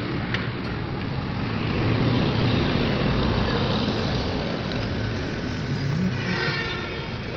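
A motor vehicle running, with steady engine rumble and road noise. A short higher-pitched tone joins near the end.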